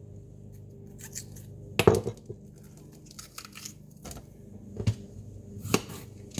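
Knife cutting up a bell pepper on a cutting board: a few scattered knocks of the blade on the board, the loudest about two seconds in, with lighter clicks and handling noises between.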